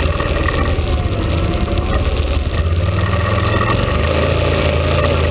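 ATV engine running steadily as the quad rides along, heard on board, with a constant low drone.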